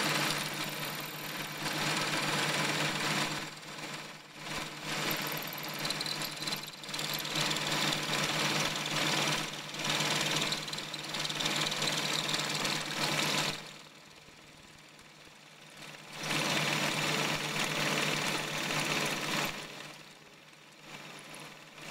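Small metal lathe running, its spinning drill bit cutting into a cast inlet manifold fed against it by hand, a steady motor hum under a harsh cutting noise. The cutting noise drops away twice for a couple of seconds, about two-thirds of the way in and again near the end.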